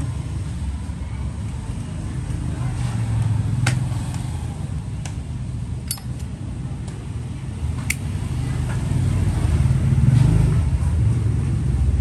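Road traffic passing, a steady low rumble that grows louder near the end, with a few sharp clicks over it.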